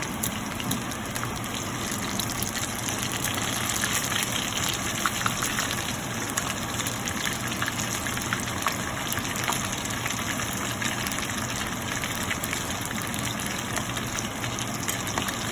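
Chicken lollipops shallow-frying in hot oil: a steady sizzle with scattered small pops.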